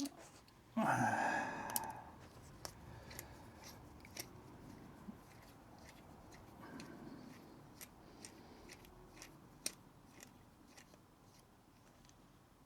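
Small metallic clicks and taps of a hex key and loosened bolts being worked out of the cylinder head of an OS MAX 40 model glow engine. A louder noise about a second long comes about a second in.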